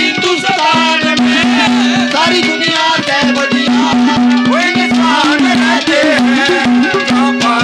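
Live Haryanvi ragni folk music in an instrumental passage: a melody over a held note that keeps breaking off and coming back, with quick, busy hand percussion.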